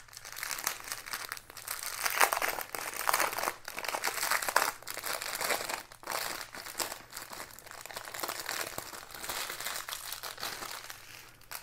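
Small clear plastic bags of diamond-painting drills crinkling as they are handled and turned over: an irregular run of crackles, louder in a few bunches in the first half.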